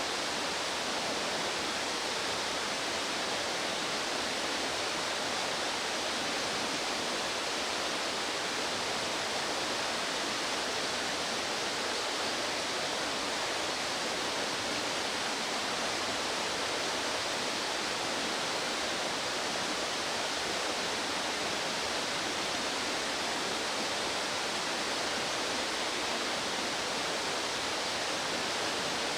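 Rushing stream water: a steady, unbroken hiss of a fast mountain stream.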